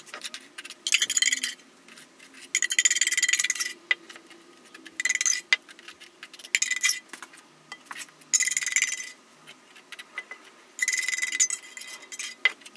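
A small metal palette knife scraping and spreading wet kiln cement over the top of a metal packing box, in about six short scraping strokes of roughly a second each, with light clicks and clinks of the knife against metal between them.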